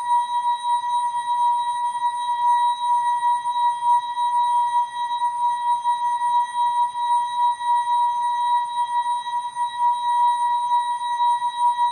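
ASKfm app sound effect, slowed down and stretched into a steady held high tone with fainter higher overtones, its loudness wavering slightly.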